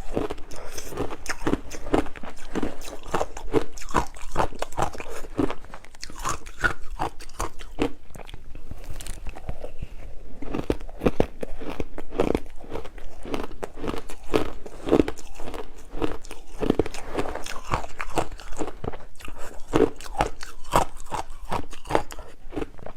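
Frozen matcha ice being bitten and chewed close to the microphone: a dense, continuous run of sharp crunches.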